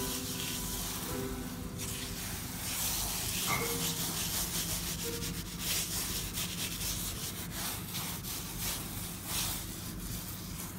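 Fingers and palm rubbing powdered mineral pigment into scored paper: a scratchy hiss in quick, uneven strokes.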